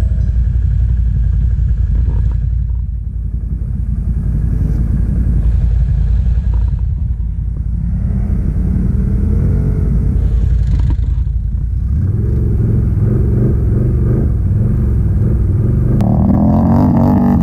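ATV engine running, heard from the rider's seat as the quad rides along a dirt trail, with a steady low rumble. Its pitch rises and falls with the throttle, more so in the second half.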